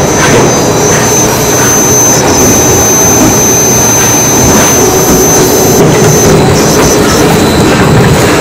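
Spindleless rotary veneer peeling machine with twin drive motors running loud and steady while peeling a hardwood log, with a steady high whine that cuts out about six seconds in.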